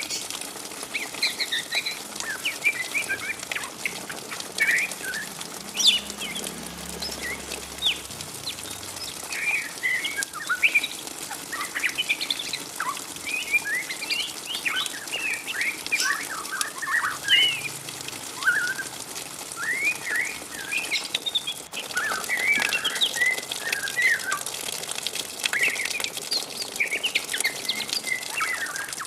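Young white-rumped shama, about 3–4 months old, twittering its 'ngriwik' juvenile song: a steady stream of short, quick chirps and warbled notes that keeps up without pause.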